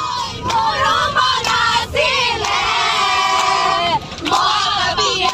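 A group of young women singing loudly together, with long held notes, and clapping along. The singing breaks off briefly about four seconds in.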